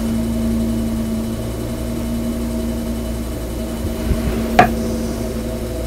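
Electric potter's wheel motor running with a steady hum as a plate turns on the wheel head, with one short tap about four and a half seconds in.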